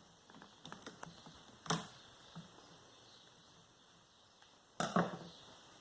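Plastic clicks and knocks from a column fan's top cover being worked free of its latches: a few light ticks, a sharp click about a second and a half in, and a louder double click near the end.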